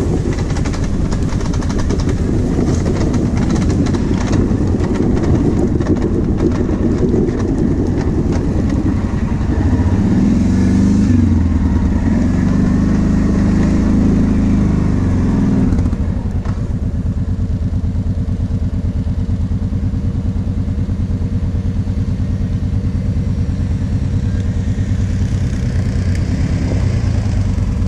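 Kawasaki KVF 750 Brute Force ATV's V-twin engine pulling through mud, revving up and down over knocks and rattles from the rough track. About two-thirds of the way through it drops to a steady, quieter low-speed running.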